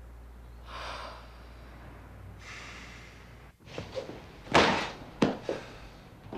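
Two soft breathy exhales, then about four and a half seconds in a cloth bag thrown down onto a chair lands with a loud thud, followed by two sharper knocks.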